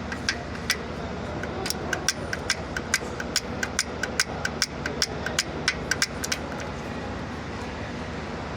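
Mercedes-Benz truck diesel engine running steadily, with sharp metallic taps about two or three a second over it that stop a little past six seconds in.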